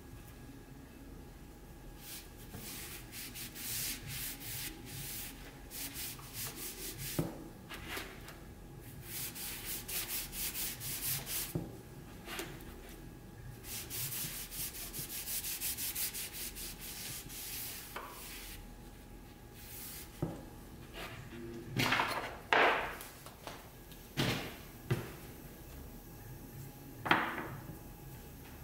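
A cloth pad rubbed back and forth over the wooden and sheet lining of a glue-up frame, quick hissy strokes applying paste wax. In the second half the rubbing stops and a few sharp knocks follow as things are set down on the bench, the loudest near the end.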